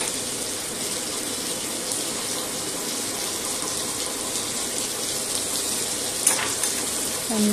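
Sliced onions sizzling steadily in hot oil in a steel pot, with one sharp click of a utensil about six seconds in.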